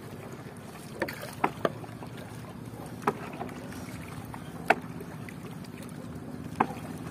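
Bamboo raft being poled across a lake: water splashing and lapping against the raft, with about six sharp wooden knocks at uneven intervals as the long pole bumps the bamboo. A low steady hum runs underneath.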